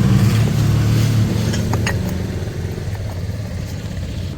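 A motor vehicle engine runs steadily with a low hum that fades slowly, and two or three sharp metallic clicks come about midway.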